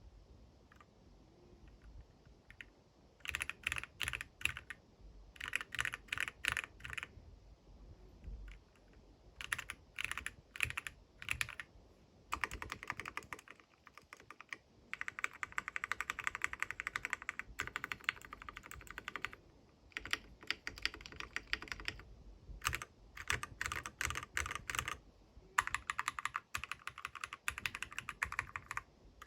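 Keychron C3 Pro mechanical keyboard being typed on: bursts of rapid key clicks with short pauses between them. The typing starts about three seconds in, and the longest, fastest run comes around the middle.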